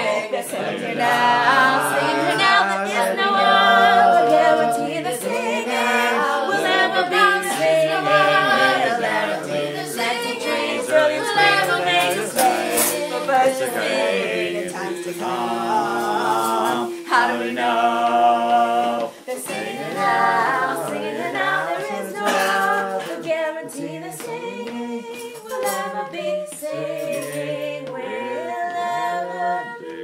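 A small group of men and women singing a song together a cappella, several voices at once with no instruments, softening somewhat over the last part.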